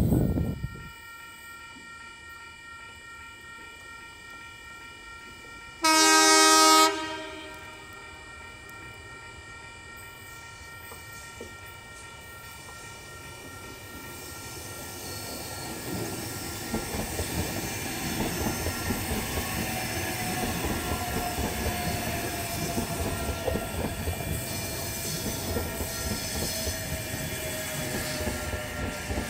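Sydney Trains OSCAR (H set) double-deck electric train sounding its horn once, for about a second, then approaching and running past, its rumble of wheels on rail building up, with a slowly falling whine during the pass.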